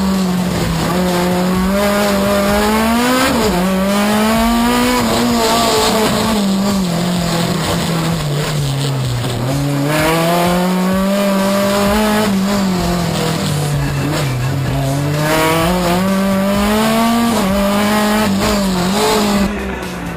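Race car engine heard from inside the cockpit, its revs climbing and falling over and over as the car accelerates, brakes and shifts through a slalom course.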